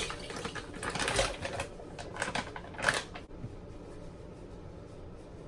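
Light clicking and clattering as a blender jar is filled with thawed strawberries and handled, for about three seconds, then only a low background hum.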